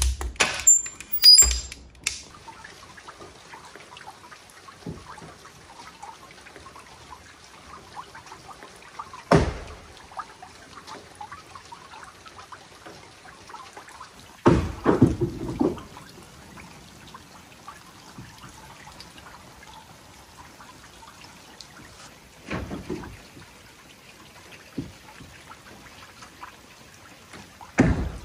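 Wood stove door swung shut and latched with sharp metal clanks. Then a faint, steady outdoor background of trickling, dripping water, broken by a few dull thuds.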